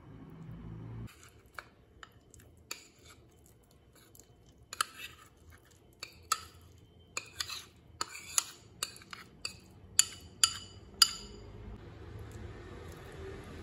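Metal spoon clinking and scraping against a ceramic bowl and a nonstick frying pan as thick corn batter is scooped out and spread: about a dozen sharp clinks, each with a short ring, loudest in the second half. A low rumble builds near the end.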